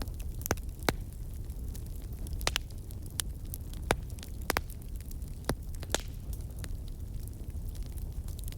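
Wood fire crackling: irregular sharp pops and snaps, about a dozen, over a steady low rumble of the burning.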